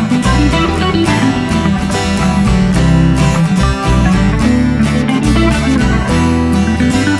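Background music led by a strummed and plucked guitar over a steady bass line.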